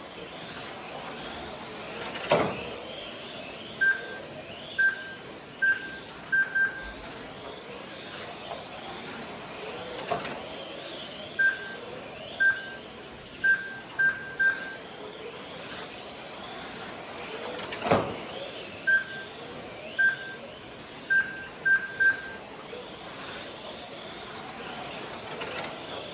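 Electric GT12 1/12-scale RC cars running laps, their motors whining in rising and falling sweeps as they pass, while the lap-timing system gives short high beeps as cars cross the line, often several in quick succession. Three louder sharp knocks are heard along the way.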